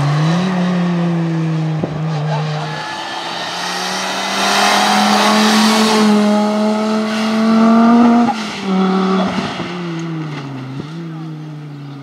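Audi Sport quattro S1 Group B rally car's turbocharged five-cylinder engine at full throttle, passing close. The revs drop about three seconds in, rise in one long pull to their loudest about eight seconds in, drop sharply, and climb again near the end.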